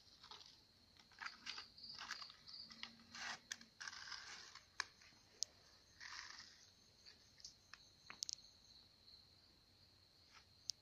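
Insects trilling steadily at a high pitch, with irregular crunching and rustling of gritty ground and plastic litter and a few sharp clicks.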